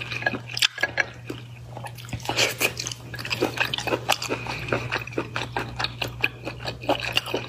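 Close-miked chewing of a piece of snail meat dipped in chili sauce, with many wet mouth clicks and smacks at an irregular pace.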